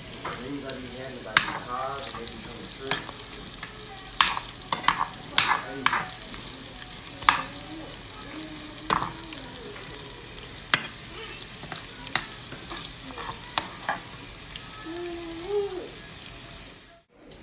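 Diced bacon with green pepper and onion sizzling in a nonstick frying pan. A utensil stirring the pan makes irregular sharp clicks and scrapes against it. The sound cuts off near the end.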